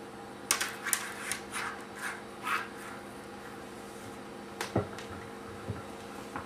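Scratchy strokes of a drawing tool on paper as a child draws: about eight quick strokes in the first two and a half seconds, then a single knock a bit past the middle. A steady low hum runs underneath.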